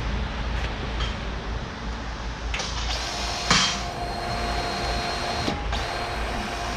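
Cordless grease gun's motor running with a steady whine in two stretches, stopping briefly about five and a half seconds in, as grease is pumped into the front loader's pivot fittings. A sharp knock about three and a half seconds in.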